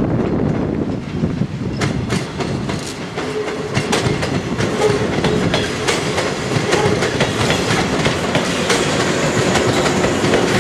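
Yellow JR West 115-series electric multiple unit passing close by, its wheels clicking over the rail joints. A steady hum joins about three seconds in.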